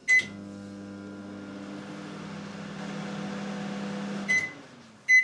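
Microwave oven beeps once as it is started, then runs with a steady hum and fan noise for about four seconds. The hum stops and it beeps twice near the end as the cycle finishes.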